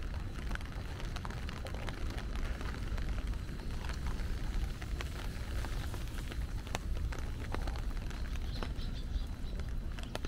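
Steady rain falling, with many small scattered drop ticks over a hiss and a low rumble underneath.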